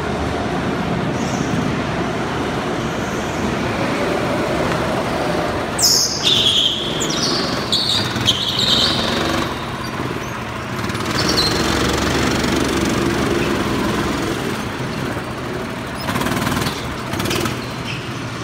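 Go-karts running laps on an indoor track, a continuous engine drone, with several short high squeals between about six and nine seconds in.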